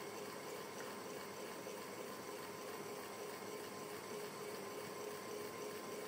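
Electric fan running steadily: an even rush of air noise with a faint steady hum under it.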